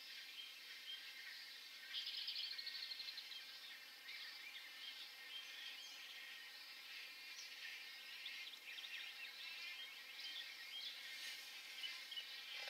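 Faint, continuous chorus of many overlapping chattering calls from a wood stork nesting colony, with a brief rapid trill about two seconds in.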